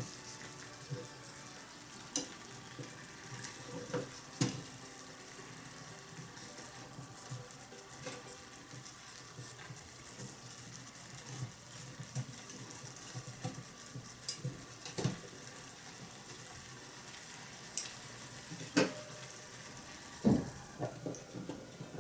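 Small iron pot of offal hotpot with champon noodles sizzling and bubbling over an alcohol stove, the broth cooked down low enough that the noodles are catching on the bottom. Now and then there are sharp clicks of a utensil stirring and knocking against the pot.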